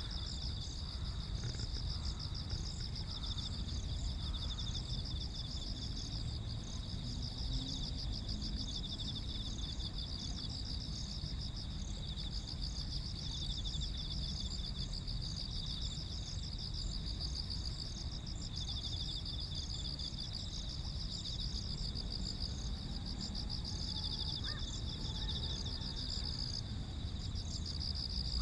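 Chorus of many singing field insects: dense, overlapping high-pitched trills in two pitches that run on without a break, over a low steady rumble.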